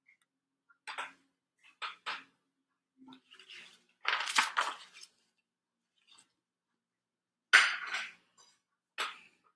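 Pages of a large picture book rustling as the book is handled and a page is turned: a series of short swishes, the loudest a cluster about four seconds in and another about seven and a half seconds in.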